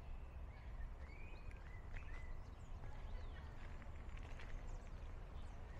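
Small birds chirping, short rising and falling notes scattered through, over a low steady rumble.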